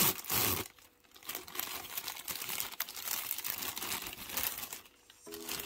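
Clear plastic packaging bag crinkling and rustling as hands pull it open and work a small plastic figurine out of it. Loudest at the start, with a short lull about a second in.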